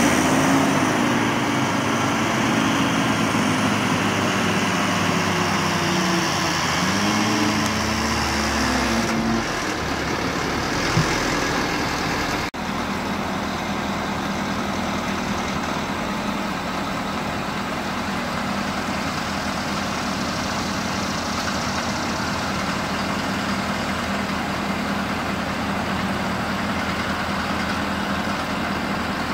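Ford F-450 Super Duty dump truck's engine running, its pitch rising and falling for the first nine seconds or so, then after a cut a steady hum.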